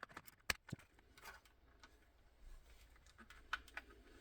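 A few faint, sharp clicks and small knocks from handling the small parts of a car's brake light unit as it is fitted back together, the sharpest about half a second in.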